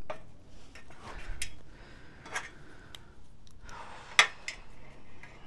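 Handling noise of a Canon FTb film camera body being picked up and turned in the hands: rustling with a few sharp clicks and knocks, the loudest about four seconds in.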